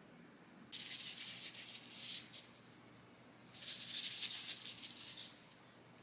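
Small pieces of dough rolled between palms in disposable gloves: two spells of glove rubbing and rustling, each about two seconds long.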